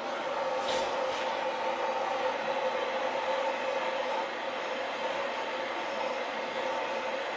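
A gas torch flame burning with a steady hissing roar, heating a seized tractor belt pulley so that it expands loose.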